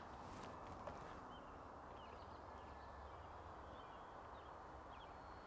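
Faint outdoor ambience: a low, steady rumble with a few faint, short bird chirps scattered through it.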